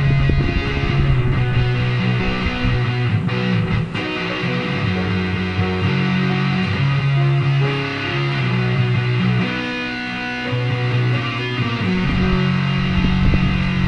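Epiphone SG electric guitar played melodically over held low chords that change every second or two.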